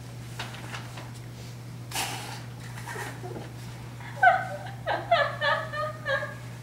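A girl giggling in quick, high-pitched bursts for about two seconds, starting about four seconds in, after a short burst of breathy noise about two seconds in; a steady low hum runs underneath.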